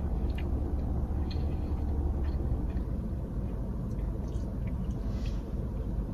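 Steady low rumble inside a parked car's cabin, with faint soft clicks of chewing and handling food now and then.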